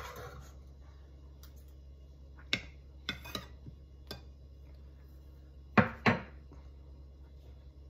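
Kitchenware knocks and clinks as a pizza cup is lifted from a metal muffin pan and set on a glass plate: a few light knocks, then two louder knocks close together about three-quarters of the way through.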